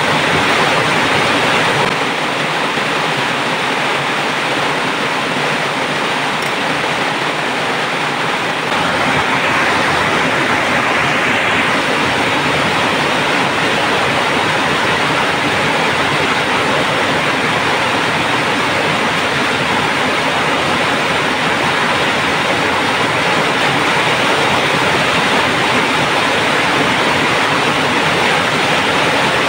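Pot of water at a rolling boil on a stove: a steady bubbling hiss that grows a little louder about nine seconds in.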